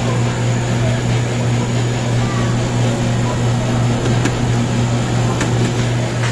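Soft-serve frozen yogurt machine's refrigeration compressor and fan humming steadily with a low electrical drone, with a couple of light clicks about two thirds of the way through.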